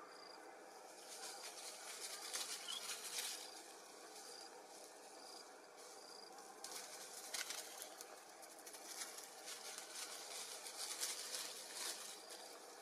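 Faint forest ambience: dry crackling rustles that come and go in several bursts, with a short high peep repeating about every half second.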